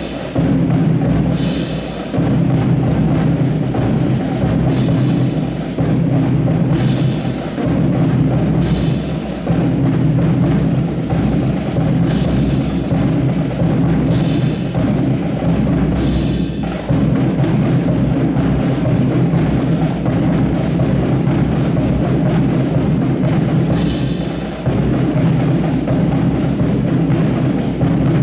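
Drum-led music with a steady beat, with a sharp crash-like stroke every two seconds or so through much of it.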